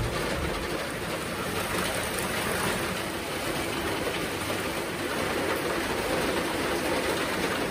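Steady rain falling, an even hiss that runs without a break.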